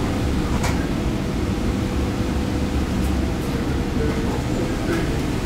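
A 1960 PCC tram running on its rails: a steady low rumble with a faint steady whine over it, and a sharp click under a second in.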